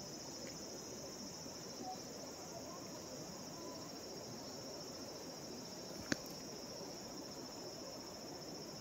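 Steady high-pitched chirring of insects, with one sharp click about six seconds in.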